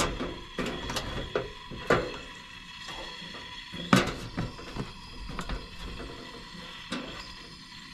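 Irregular sharp knocks and snaps, several in a few seconds, the loudest about two and four seconds in, over a faint steady background.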